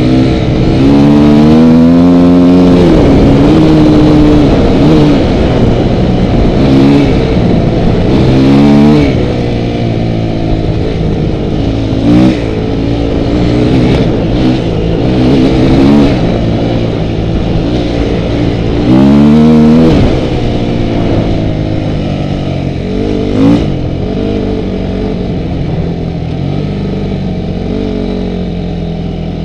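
Off-road motorcycle engine heard up close on board, revving up and falling back again and again as the throttle is opened and closed over rough ground, each burst a rising whine.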